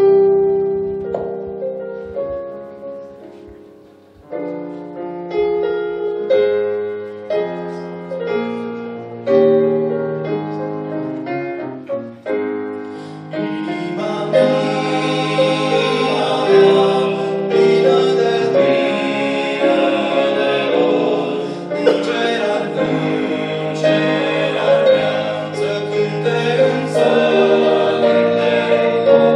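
Piano introduction of separate notes that ring and fade, then, about halfway through, a male vocal group comes in singing together over the piano accompaniment.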